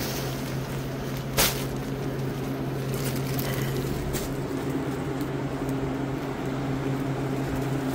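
Steady low hum, with plastic-wrapped clothing packets crackling now and then as they are handled; one sharp crackle comes about a second and a half in.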